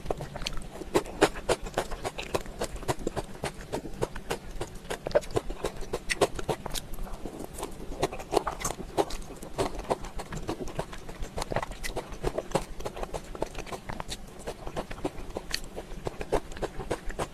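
Close-miked chewing and mouth sounds of a person eating: a dense, irregular run of short clicks and smacks.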